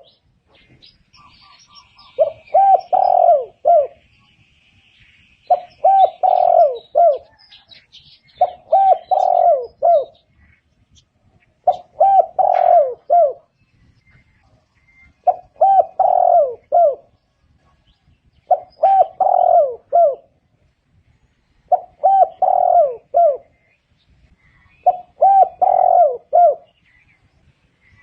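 Spotted dove calling: a phrase of three or four low, bending coos, repeated eight times at about one phrase every three seconds.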